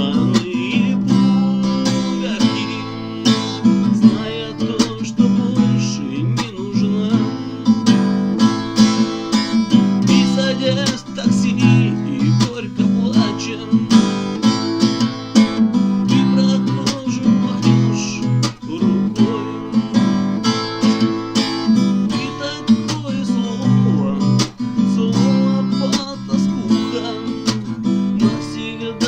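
Acoustic guitar playing on its own, strummed in a steady, even rhythm with no singing.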